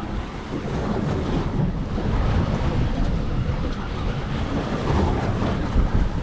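Strong wind buffeting the microphone, with choppy water sloshing against a small boat at sea.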